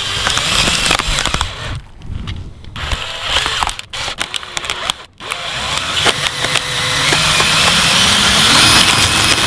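A power drill bores a large hole through the body of a Nokia 3310 mobile phone. The cutting stops and starts twice in the first half, then runs steadily and grows louder from about six seconds in.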